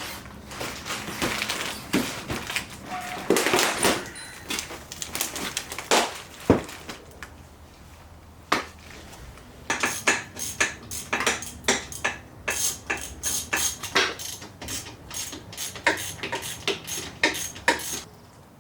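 Irregular metal clanks, knocks and clicks of hand tools and parts as a Harley-Davidson Sportster is tipped over and unbolted. There is one heavy thud about six and a half seconds in, and a quick run of clicks and taps in the second half.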